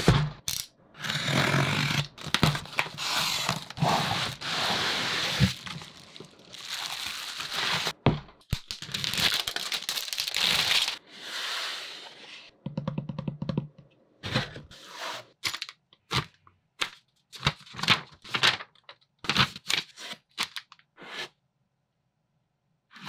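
Unboxing: packing tape torn and a cardboard box opened, long rasping tears and scrapes through the first half. Then a wooden kit box and its parts handled, a run of light clicks and taps.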